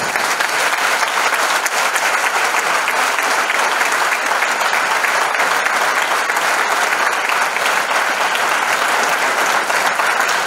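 Audience applauding: many hands clapping in a dense, steady burst of applause.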